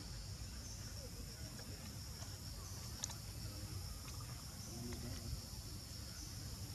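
Steady high-pitched insect chorus, with a low rumble underneath and one sharp click about three seconds in.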